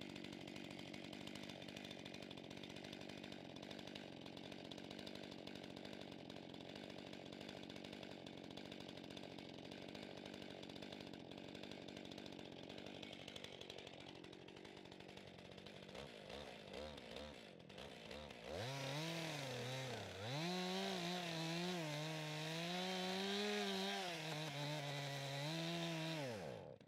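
Stihl two-stroke chainsaw idling steadily, then, about two-thirds of the way in, revving louder as its bar is plunged into a log corner to cut a mortise, the engine pitch rising and dipping under load.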